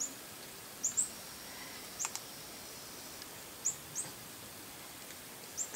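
A small bird giving short, high, upward-sliding chirps about once a second, some in quick pairs, over a faint quiet background.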